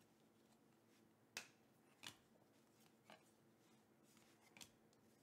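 Baseball trading cards being flipped through by hand: four faint, sharp flicks as cards slide off the stack.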